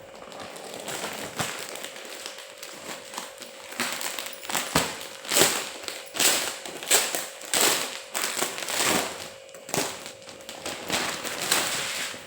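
Irregular crinkling and rustling, a string of uneven noisy strokes like material being handled, over a faint steady hum.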